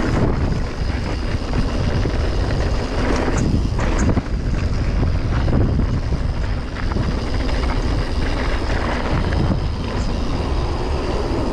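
Mountain bike rolling fast down a dirt trail: steady wind rumble on the microphone with tyre noise and scattered knocks and rattles from the bike.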